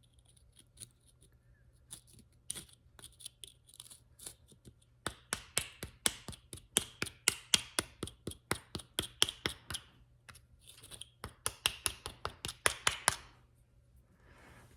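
Rust and packed debris being scraped off the toothed rack of a drill press quill, in quick repeated scraping strokes several a second. The strokes are sparse at first, get louder about five seconds in, pause briefly about ten seconds in, and stop shortly before the end.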